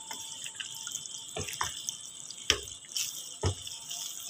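Spoon stirring a thick, wet curry of chana dal and aubergine in a pan: about five short wet knocks and scrapes against the pan over the last three seconds.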